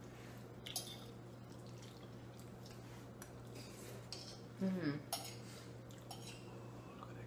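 Forks clicking and scraping on dinner plates as two people eat, a few light clicks over a steady low hum. A brief murmur of a voice comes about two-thirds of the way through.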